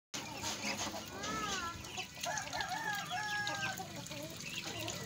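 Mixed flock of young ducks and chickens calling: clucks and high, short peeping calls over a constant chatter, starting just after the opening.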